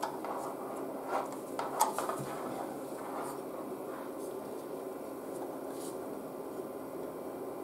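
Steady hum of a spectrum analyzer's cooling fan, with a few light clicks and taps from coaxial cables and BNC connectors being handled, mostly in the first two seconds.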